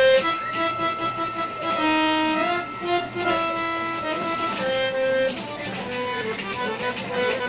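A hand-pumped harmonium played solo: a reedy melody of held notes, some lasting about a second, mixed with quicker runs of notes.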